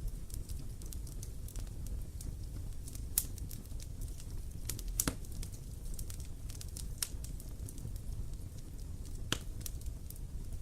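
Wood bonfire burning: irregular sharp crackles and pops over a steady low rumble, with a few louder pops scattered through.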